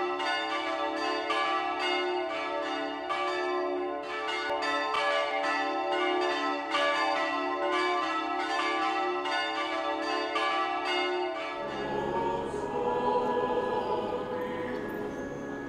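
Church bells ringing a quick run of strikes, about two to three a second, with their tones ringing on. About twelve seconds in the bells give way to a large crowd singing.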